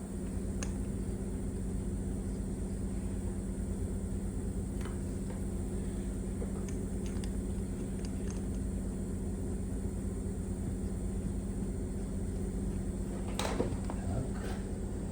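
Steady low mechanical hum, with a few faint clicks and a sharper clink a little after thirteen seconds in.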